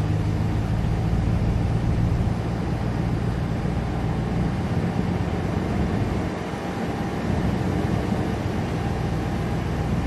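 Truck engine running with a steady low hum, dipping briefly a little over six seconds in.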